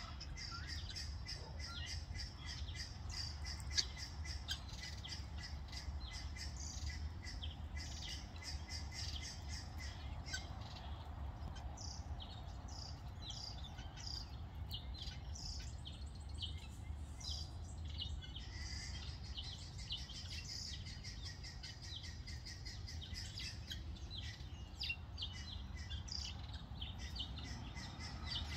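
Helmeted guinea fowl keets peeping: a continual run of short, high chirps, several a second, over a steady low rumble.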